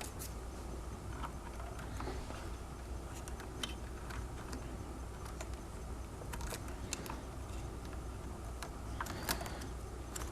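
Light, scattered clicks and rustles of wires being tucked into a hoverboard frame and bundled with a Velcro strap, over a steady low hum.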